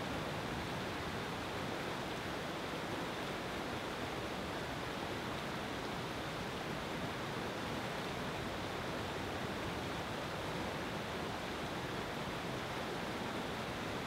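River rapids rushing: turbulent whitewater pouring over rocks in a steady, even rush of flowing water.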